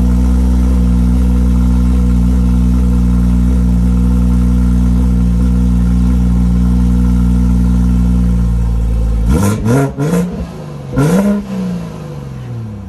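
High-horsepower BMW engine idling loudly and steadily, then blipped twice near the end, its pitch rising and falling with each rev.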